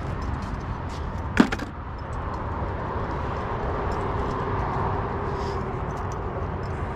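Steady wind rumble on the microphone, with a single sharp metallic clank about a second and a half in.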